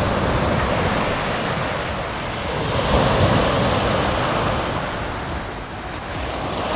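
Small waves breaking and washing up on a pebbly lake shore, swelling about three seconds in and again near the end, with a low wind rumble on the microphone.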